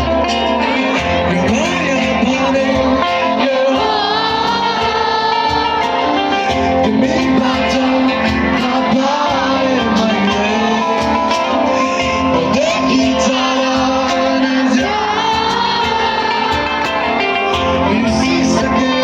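A live band performing a song: singing over guitar and other instruments, amplified through a sound system.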